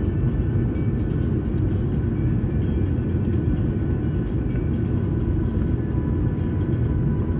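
Airliner cabin noise while taxiing after landing: a steady low rumble of the engines at idle and the wheels rolling on the taxiway.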